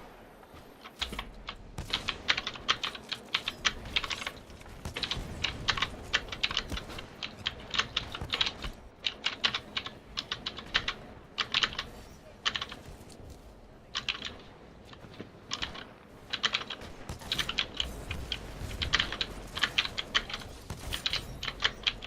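Typing on a mechanical keyboard with clicky Gateron Blue switches: quick, irregular runs of sharp key clicks in bursts, with brief pauses between them.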